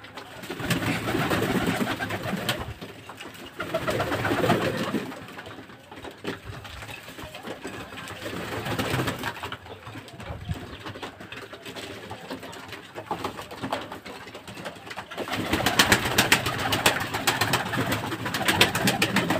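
Domestic pigeons cooing in a small walled loft, in swells every few seconds. Near the end a louder stretch of rapid wing flapping as a pigeon flutters down.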